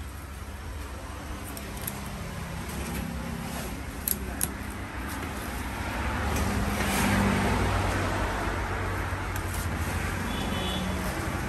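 Steady low rumble of passing road traffic, swelling about six seconds in and easing off again. Two sharp knocks of a knife against the wooden chopping block come about four seconds in.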